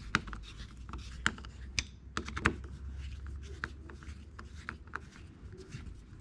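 Irregular small clicks and ticks of a screwdriver and a hex key turning screws in the coupler housing of a hedge trimmer attachment, tightening them down.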